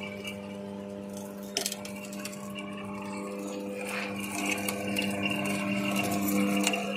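Electric automatic sugarcane juice machine running with a steady motor hum while a cane stalk is fed into its rollers and crushed, growing a little louder in the second half. A sharp click comes about one and a half seconds in.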